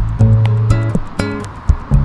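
Smooth Latin background music with plucked guitar notes over a steady beat.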